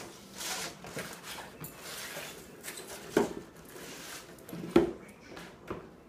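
Empty cardboard 12-pack soda box being nosed and shoved across a wooden floor by a dog: rustling and scraping with a few sharp knocks, the loudest a little before the end.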